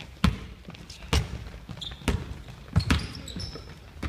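A basketball dribbled on a hardwood gym floor: about five sharp bounces at an uneven pace, roughly one a second, with a couple of brief high sneaker squeaks on the floor.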